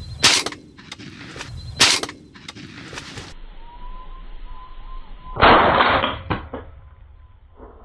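.410 shotguns firing: two sharp, loud shots about a second and a half apart near the start, then a longer, duller loud blast about five and a half seconds in.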